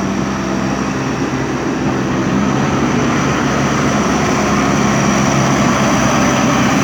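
JCB 3DX Super backhoe loader's diesel engine running steadily under load, slowly growing louder.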